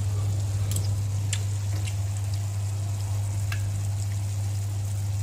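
Curry sauce simmering and sizzling gently in a frying pan on low heat, with a few small pops about a second in and again later. Under it runs a steady low hum.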